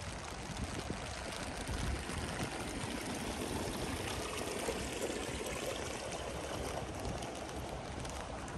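Steady rush of flowing water in the rain, swelling a little about halfway through.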